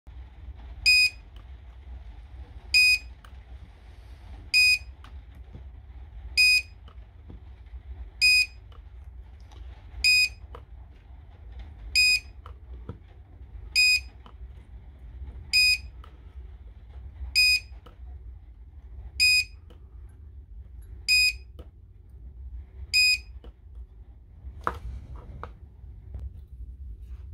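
An electronic beeper sounding short, high, identical beeps at an even pace of about one every 1.8 seconds, thirteen in all, then stopping. Faint clicks of tool work on the cell strips run underneath, with one sharper click near the end.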